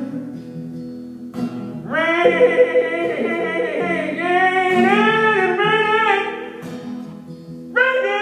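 A man singing with an acoustic guitar, live. The guitar plays alone at first. About two seconds in, the voice enters with long, bending held notes that last several seconds. It drops back to guitar and returns just before the end.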